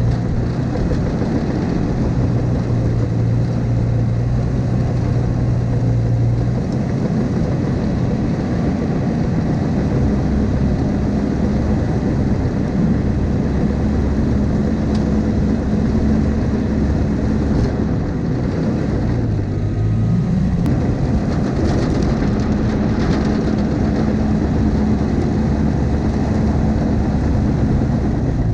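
Diesel engine of a Cat tracked machine working steadily. Its pitch steps up about six seconds in as the revs rise, then dips briefly and recovers near two-thirds of the way through.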